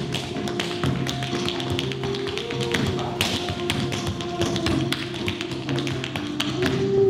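Tap shoes striking a wooden floor in quick, irregular rhythms of many sharp taps, over music.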